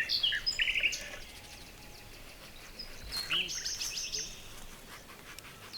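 Birds chirping: quick runs of short, high chirps, one at the start and another from about three seconds in.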